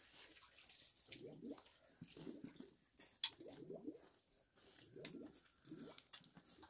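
Small hand hoe chopping and scraping into dry, crumbly soil while a shallow trench is dug, with loose soil scooped by hand. The strokes come about once a second, with a sharp click a little after three seconds in.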